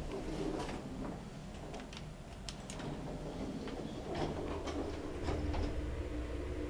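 1972 Fujitec traction elevator in operation: a steady low hum with a series of sharp clicks and rattles between about two and a half and five and a half seconds in.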